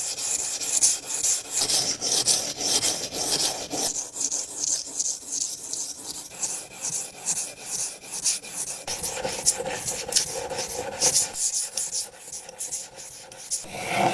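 Steel carpentry scraper blade being sharpened: a steady run of rasping back-and-forth strokes, about two a second.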